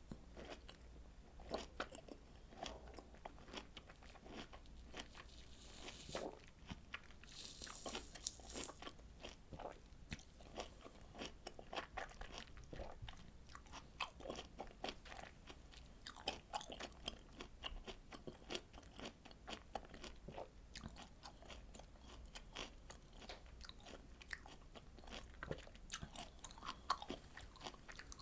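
Close-miked eating of juicy citrus fruit: a dense, irregular run of wet bites and chewing clicks, with a short rustling hiss about six to eight seconds in.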